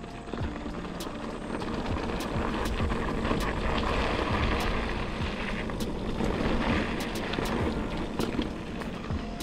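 Mountain bike riding along a dry dirt singletrack: tyre noise and wind rushing on the camera microphone, swelling louder through the middle, with scattered clicks and rattles from the bike.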